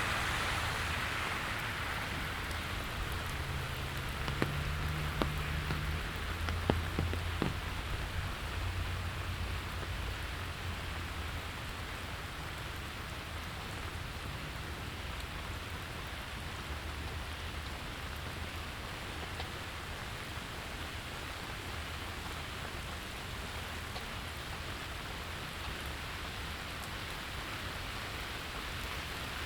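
Steady rain falling on street and pavement, an even hiss with a few sharper drip clicks a few seconds in. A louder wash fades away at the very start, under a faint low rumble.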